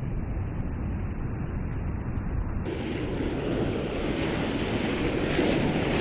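Rough sea surf breaking and foaming over shore rocks, a steady roar with wind buffeting the microphone. About two and a half seconds in it turns suddenly brighter, closer and slightly louder.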